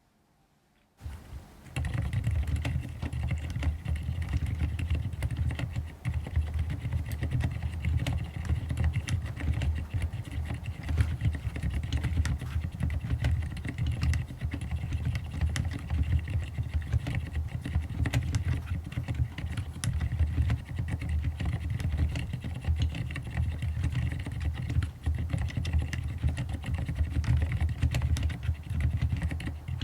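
Fast, continuous typing on a mechanical keyboard fitted with fully lubed Cherry MX Silent Red (low-noise linear) switches. It starts about a second in. What is heard is mostly fingers striking the keycaps, since the lubed silent switches make almost no sound of their own.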